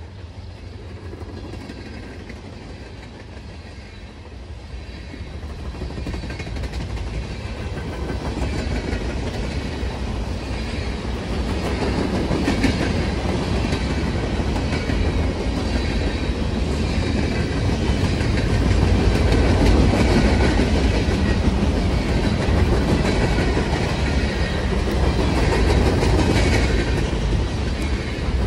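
Freight train cars rolling past on the near track: a steady rumble of steel wheels on rail with clickety-clack, growing louder over the first half or so and then holding.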